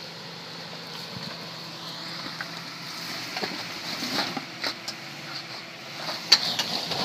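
Off-road 4x4's engine running at low revs under a steady hiss, with several sharp knocks and clunks in the second half, the loudest about six seconds in.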